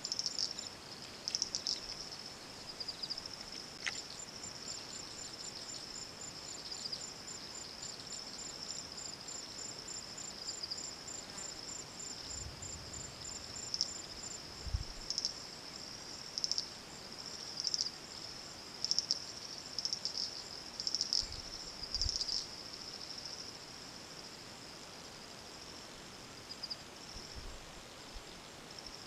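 Insect chorus shrilling steadily in a high band, with a faint fast ticking above it. About halfway through, louder pulses come roughly once a second. A few soft low thumps are also heard.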